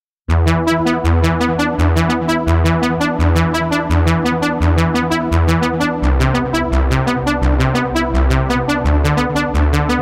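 Dawesome Novum granular software synthesizer playing its 'Lead Echo Syn 2' lead preset: a fast run of repeated notes over a pulsing lower line, starting abruptly about a third of a second in. The lower line steps down about six seconds in.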